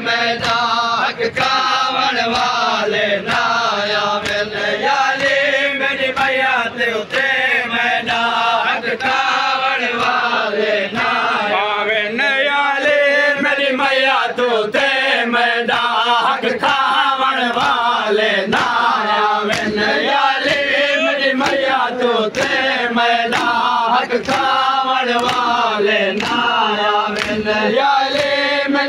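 Men chanting a Saraiki noha (Shia lament) together, a lead voice with the crowd joining in. Under it runs a steady rhythm of open-handed chest-beating (matam) slaps.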